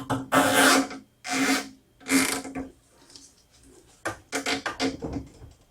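Nylon zip ties being pulled through their locking heads: three long ratcheting zips, then a quick run of short tugs as they are drawn tight.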